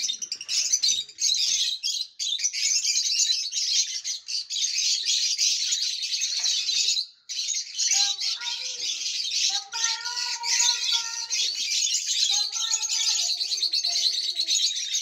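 A flock of lovebirds, lutino and Fischer's lovebirds, chattering: a dense, continuous mass of high-pitched chirps and tweets. From about halfway through, lower gliding calls join in.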